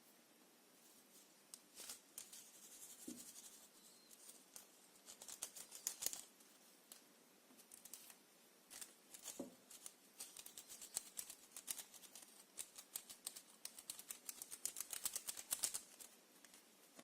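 Glitter slime being worked by hand, giving quick crisp clicks and crackles in bursts, densest in the second half.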